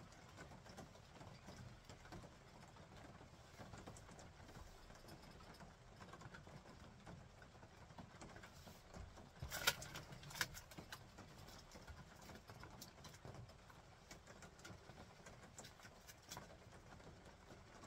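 Quiet handling of kindling at a small metal wood stove: sparse faint clicks, then two sharp knocks a little under a second apart about ten seconds in as wood is set into the firebox.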